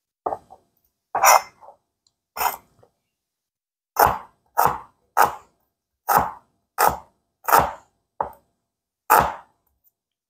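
Cleaver chopping small white onions on a paper plate set on a granite counter: about a dozen separate knocks of the blade. They come unevenly at first, then settle into a steady beat of about three every two seconds.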